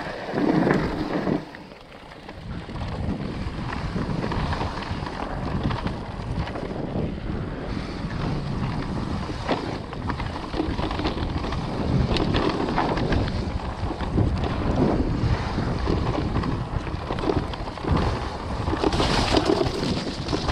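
Orbea Wild FS electric mountain bike descending a rough dirt trail at speed: tyres rolling over the ground, with many short rattles and knocks from the bike, under heavy wind rumble on the action camera's microphone.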